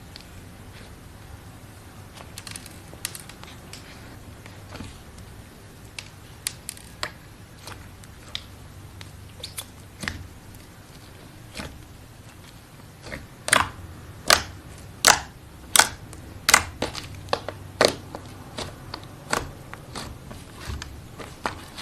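Slime being handled, giving scattered sharp pops and crackles that grow louder and more regular about halfway through, coming a little under a second apart.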